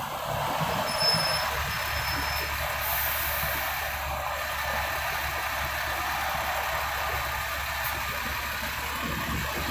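City street traffic: a steady mix of engine rumble and tyre noise from passing vehicles, with two short high-pitched beeps in the first couple of seconds and a brief high hiss about three seconds in.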